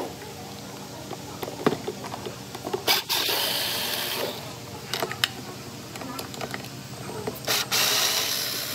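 Sharp clicks and knocks of hand tools at work, with two long hissing bursts: one about three seconds in and one near the end, each lasting over a second. A faint steady hum runs underneath.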